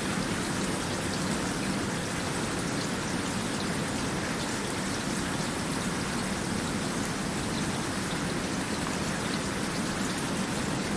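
Steady rain falling, a continuous hiss with many small drop patters on a surface.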